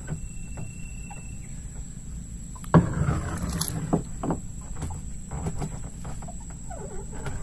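Thump on the planks of a wooden boat about three seconds in, followed by a few smaller knocks as a person shifts and crouches in it.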